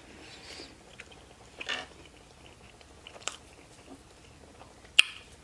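Close-miked chewing of food, with a few sharp wet mouth clicks spread through it, the loudest near the end.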